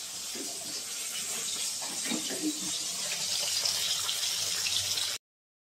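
Small rohu (chara pona) fish sizzling as they fry in hot mustard oil in a steel kadai: a steady hiss that cuts off suddenly about five seconds in.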